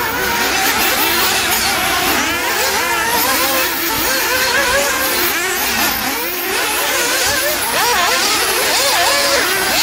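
Many nitro RC off-road cars racing at once, their small two-stroke glow engines revving up and down over one another without a break.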